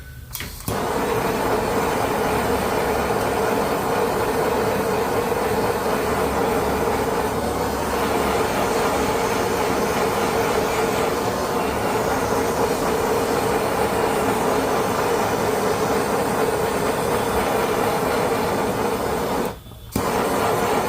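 Heat gun switched on about a second in and blowing steadily, a fan hum with a strong steady tone, shrinking heat-shrink tubing over a crimped N-type coax connector. It cuts out briefly near the end and starts again.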